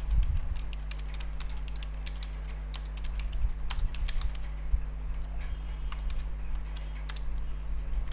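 Typing on a computer keyboard: irregular key clicks, with a lull of about two seconds near the start, over a steady low electrical hum.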